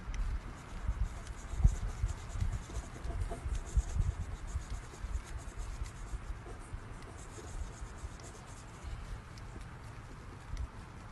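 Marker pen tip rubbing back and forth over a car's painted metal panel, colouring in a scratch, a soft repeated scratching. Low bumps and rumble come and go, most in the first few seconds.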